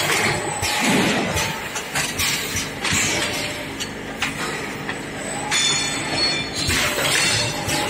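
Cutting-disc making machine running: irregular metallic clanks and clinks from its steel moulds and press over a steady machine hum. A brief high squeal comes a little past halfway.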